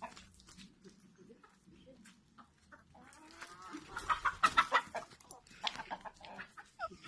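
Roosters clucking in short calls, with a louder, busier run of calls from about three to five seconds in.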